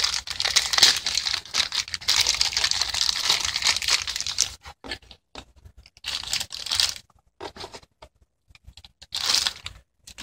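Crinkling, rustling handling noise, dense for about four seconds, then two shorter bursts later on.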